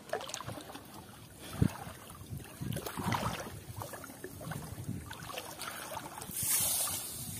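Shallow paddy water sloshing and splashing around a person's legs as they wade, with a single dull thump about one and a half seconds in.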